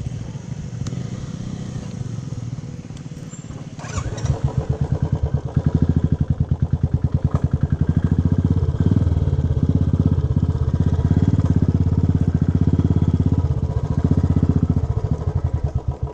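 A small engine running with a steady low throb. It gets much louder about four seconds in and stops abruptly at the end.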